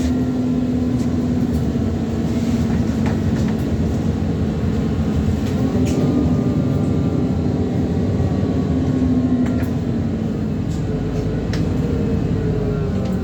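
ADL Enviro400 Trident double-decker bus running under way: a steady engine drone with a fainter whine that rises and falls in pitch as the bus changes speed, and scattered light rattles and clicks.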